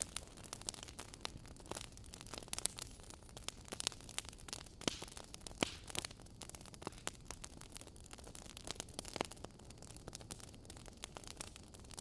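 Wood fire crackling in a fireplace: dense, irregular sharp pops and snaps over a soft, steady low rumble.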